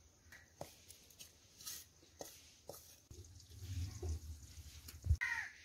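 Faint background sounds: a few light clicks, a low rumble for a couple of seconds, then a dull thump near the end followed by a short falling call.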